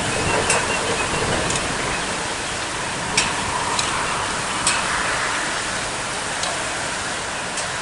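Strong wind rushing steadily, with gusts rumbling on the microphone and a few short sharp clicks through it.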